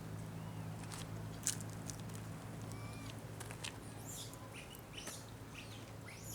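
A monkey eating: scattered sharp clicks and smacks of chewing, with a few short high chirps, over a steady low hum.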